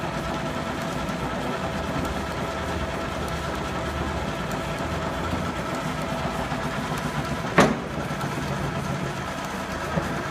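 50-inch Bullard Spiral Drive vertical turret lathe running, its table turning, with a steady mechanical hum and whine. A sharp clunk comes about seven and a half seconds in, and a lighter one near the end.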